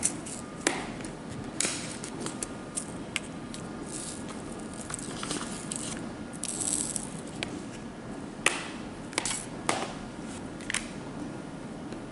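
Resin diamond-painting drills being picked up with a drill pen and pressed onto the adhesive canvas: irregular small plastic clicks and taps, with a brief rattling scrape of drills about five to seven seconds in.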